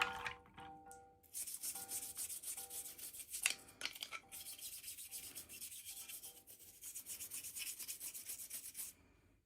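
Fast, steady rubbing and scratching against a hard surface, with a sharp click about three and a half seconds in; it stops shortly before the end.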